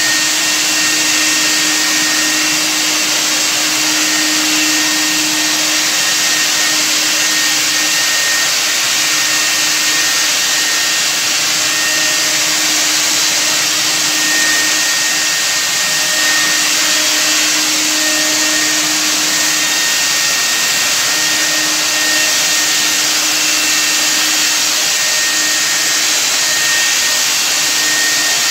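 Handheld electric disinfectant fogger running steadily, its motor and blower giving a constant whine over the hiss of the mist it sprays.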